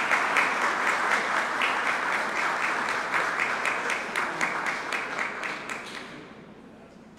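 Audience applause, many hands clapping, fading out about six seconds in.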